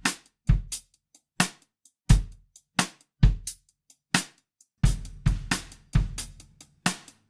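Drum loop playing with its reverb stripped out by Accusonus ERA 4's reverb remover at 75%: each hit short and dry with silence between. About five seconds in it switches to the original reverberant loop, the hits trailing into each other with long tails.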